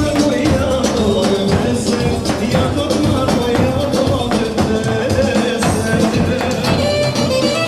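Dance music with a steady percussion beat and a melody line that moves up and down.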